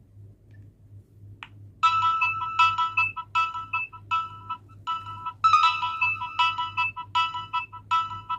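Nokia 9300 Communicator playing one of its built-in polyphonic ringtones through its loudspeaker: a melody of short, staccato notes in repeating phrases, starting about two seconds in after a single short click.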